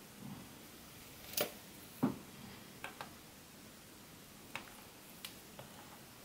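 Small scattered clicks and ticks from thin wires and parts being handled on a quadcopter's flight controller. Two louder clicks come at about one and a half and two seconds in, with fainter ones after.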